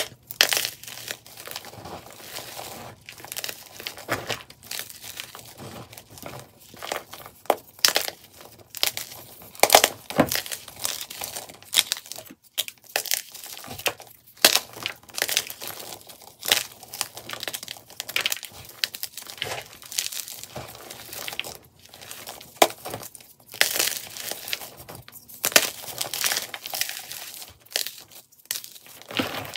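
Blocks of fairly hard SPRI gym chalk crushed and crumbled between the fingers, a dense run of dry crunches and crackles, played back sped up.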